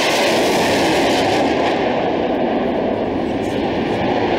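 Panavia Tornado F3 flying past with its wings fully swept, its twin RB199 turbofan engines making a loud, steady jet noise.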